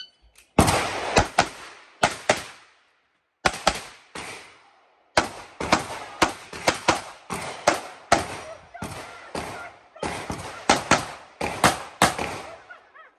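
Pistol firing rapid pairs and strings of shots, roughly two dozen in all, each with a short echo. There are two brief pauses in the first five seconds, then a near-continuous string of shots runs until just before the end.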